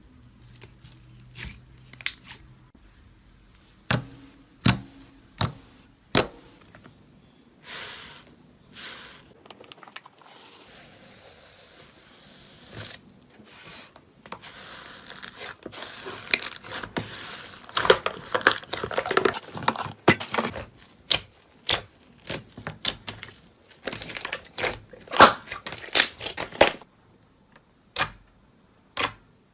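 Slime being played with: a string of sharp pops and clicks that thickens into dense crackling for several seconds past the middle, then thins back to separate pops near the end.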